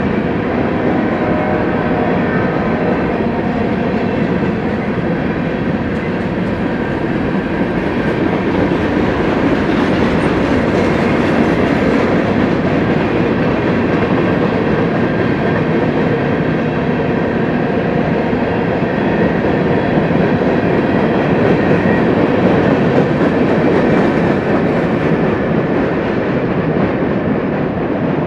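Union Pacific freight train rolling past, a steady loud rumble of railcar wheels on the rails.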